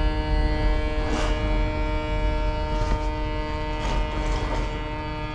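Steady engine drone: a constant low rumble with an unchanging hum on top, and a few faint knocks from handling gear.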